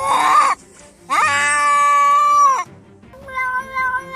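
A cat meowing: the end of one call, then about a second in one long, drawn-out meow that rises at the start and then holds a steady pitch for about a second and a half.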